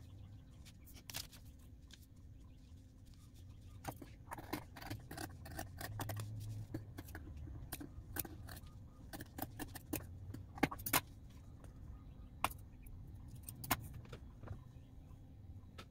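Scissors snipping through a paper pattern and white felt: a long run of irregular, crisp snips, a few of them louder in the middle, with paper rustling as the piece is turned.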